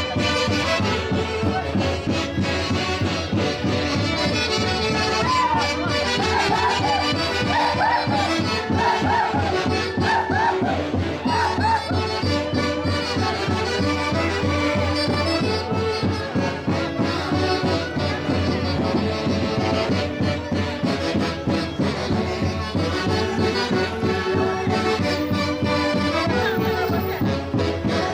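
Orquesta típica from Peru's central highlands playing lively dance music with a steady beat and a melody on wind instruments, the high notes wavering in the middle stretch.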